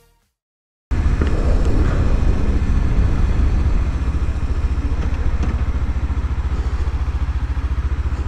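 After about a second of silence, a Kawasaki Ninja 300's parallel-twin engine runs steadily at low road speed with an even low pulse, heard from the rider's helmet camera.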